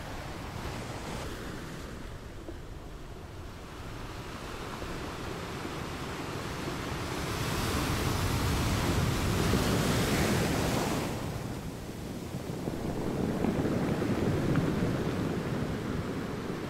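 Wind and waves at the shore: an even rushing noise, partly wind on the microphone, that swells louder twice, in the middle and again towards the end.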